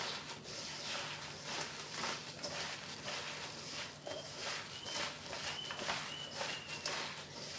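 Chopped garlic chives being tossed and gently squeezed by hand in a stainless steel bowl: soft, irregular rustling and squishing of the oily leaves against plastic gloves and the bowl.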